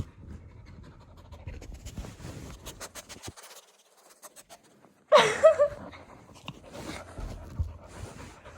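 Dog panting and sniffing while scratching and rustling at a pillow, with a run of quick scratches about two to three seconds in. About five seconds in comes a short, loud, high-pitched vocal cry.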